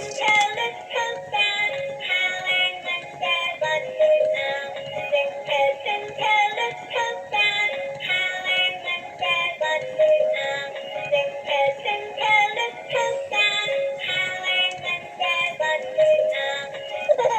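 Music with a synthetic-sounding singing voice: a melody of short notes that never pauses.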